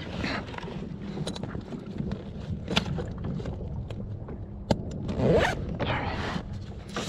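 Zipper of a fish bag being pulled in several quick strokes, with scraping and rustling as a fish is stowed, and one sharp click about two-thirds of the way in.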